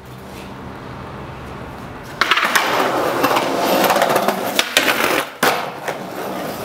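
Skateboard wheels rolling on concrete, quieter at first and much louder from about two seconds in, with several sharp clacks of the board and a short drop-out just past five seconds.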